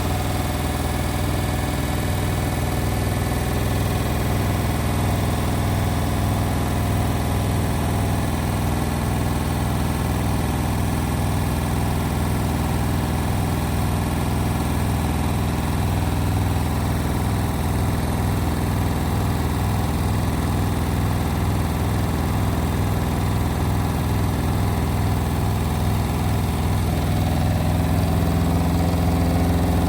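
Indesit WIL143 washing machine spinning: a steady low machine hum with a fast, even pulsing, shifting up in pitch and getting a little louder near the end as the spin builds.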